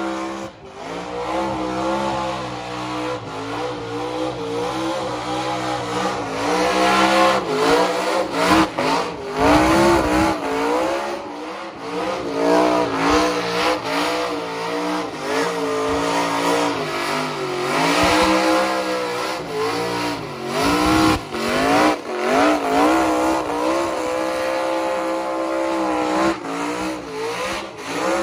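A burnout car's engine revving hard, its pitch swinging up and down over and over as the driver works the throttle, with the rushing squeal of rear tyres spinning and smoking on the pad. The engine briefly eases off about ten seconds in and again near twenty-one seconds before revving up again.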